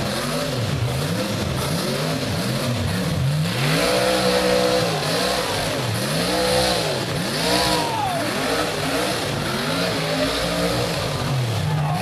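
Rock bouncer buggy's engine revving in quick repeated bursts, its pitch rising and falling about twice a second. From about three and a half seconds in come longer, higher revs as the buggy flips over backward on the hill climb.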